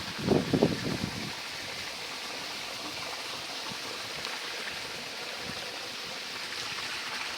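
Steady rush of a flowing stream. About a quarter second in, a brief, louder low sound lasting under a second cuts across it.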